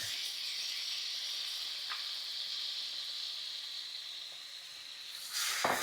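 Minced garlic sizzling in melted butter and olive oil in a skillet: a steady frying hiss that swells louder near the end.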